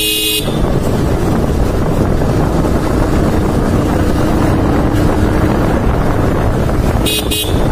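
Wind buffeting the microphone on a moving sport motorcycle, over the steady low drone of the bike running along the road. A vehicle horn beeps briefly at the very start and again about seven seconds in.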